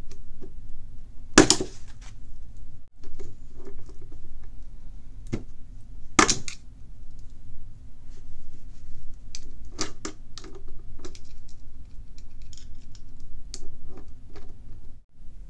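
Steel screwdriver tips scraping, clicking and ticking against a seized bearing and small gear on a Shimano Stradic spinning-reel shaft as they pry at it, with two sharp metallic clicks, one about a second and a half in and one about six seconds in. A steady low hum runs underneath.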